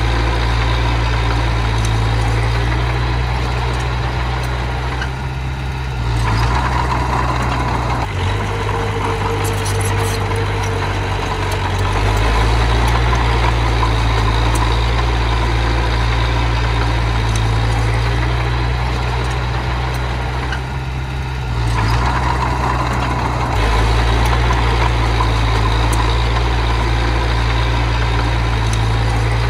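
Diesel engine of earthmoving machinery running with a steady low rumble, its load and pitch shifting every few seconds as the machine works.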